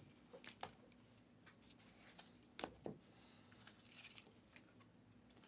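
Near silence with a few faint, short ticks and slides of trading cards being flipped through by hand.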